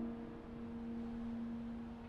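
Background score: a single low note held on and slowly fading, the tail of a chord.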